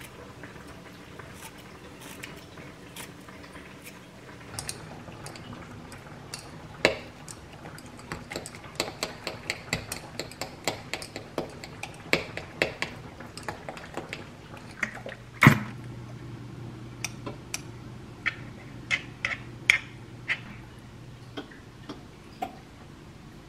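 A metal utensil tapping and clinking against a glass measuring beaker while beaten egg and chopped enoki mushrooms are mixed, in a fast run of light taps. About two-thirds of the way through there is one loud knock, then a low steady hum under scattered clicks.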